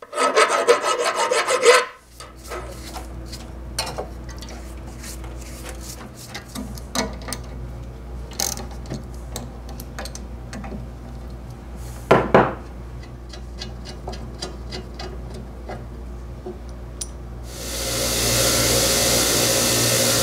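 A second or two of loud, rough rasping on metal, then a low steady hum with scattered metal clicks and knocks as the bandsaw's wheel shaft and bearing hub are worked loose by hand. Near the end a bench grinder starts up and runs steadily.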